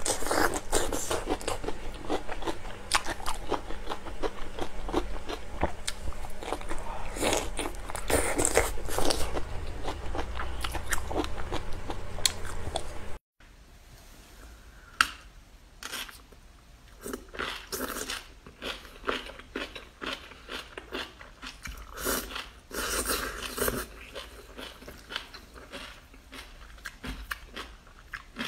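Crunching bites and chewing of whole green peppers coated in chili flakes. After a brief silent cut about thirteen seconds in, crunchy spicy napa cabbage kimchi and noodles are bitten and chewed, more sparsely.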